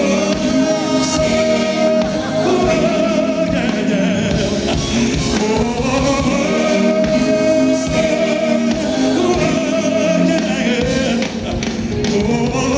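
Live R&B ballad: a male lead singer and female backing singers sing over a full band, with long held notes.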